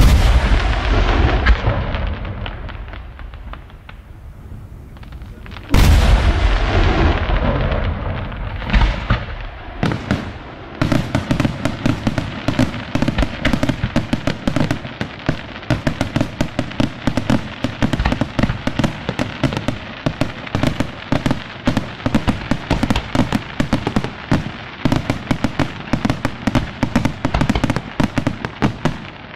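Aerial firework shells bursting. A large shell goes off with a deep boom that rumbles away, and a second one follows about six seconds in. From about ten seconds in comes a dense, continuous run of sharp bangs, several a second, as a barrage fires.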